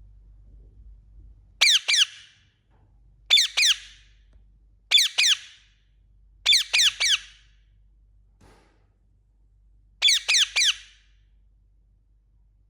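Indian ringneck parakeet calling: five bursts of shrill, high-pitched calls, each two or three quick notes, spaced about a second and a half apart, with a longer pause before the last burst.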